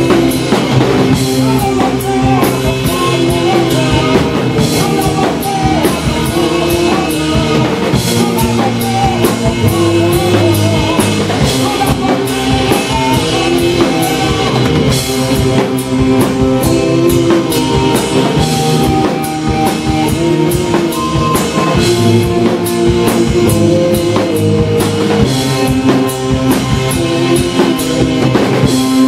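Live rock band playing loud and steady, with a drum kit, bass guitar and synthesizer.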